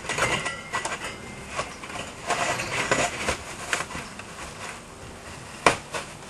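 Thin sheet-metal access-door frame being fitted into an opening cut in fibreglass duct board: irregular rattling, scraping and clicking of the metal, with one sharp click near the end.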